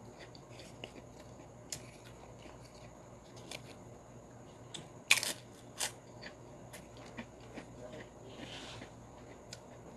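Prawn-flavoured crackers (kerupok) being bitten and chewed: scattered crisp crunches and clicks, the loudest two about five seconds in. Near the end there is a brief rustle as the pile of crackers is handled.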